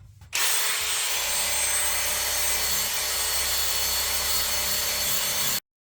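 Steady rush of air blown through a freshly repacked motorcycle-style muffler and its baffle. It starts a moment in, holds even for about five seconds and cuts off abruptly.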